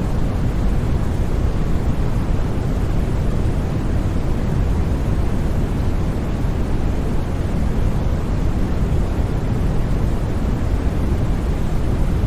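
Steady, unbroken white-noise track, heaviest in the low range so it sounds deep rather than hissy, with no changes or sudden sounds.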